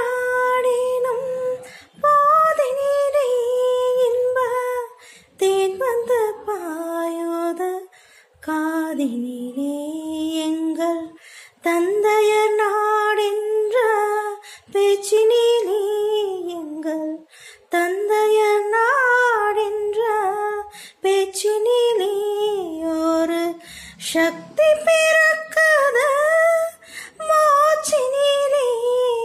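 A woman singing solo and unaccompanied, in phrases of a few seconds each with short breaks for breath between them.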